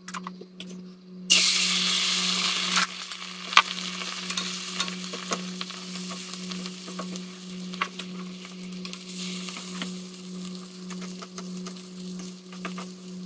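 An egg-battered eggplant slice goes into hot oil in a nonstick frying pan. It hisses loudly about a second in, then settles into a steady sizzle, with light clicks of a fork against the pan. A steady low hum runs underneath.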